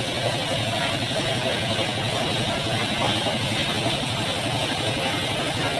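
Engine-driven corn sheller running steadily while cobs are fed into it. Its engine noise and the clatter inside the drum blend into one continuous, even sound.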